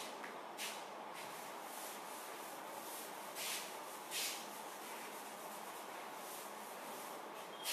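Blackboard duster wiping chalk off a blackboard: a series of short rubbing swishes, the loudest about three and a half and four seconds in, over a steady faint hiss.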